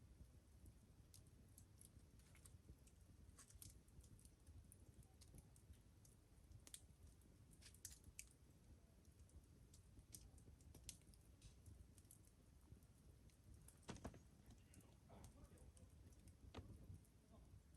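Faint, sporadic crackling and ticking of a small wood campfire, irregular sharp clicks with a few louder pops, over a low quiet background.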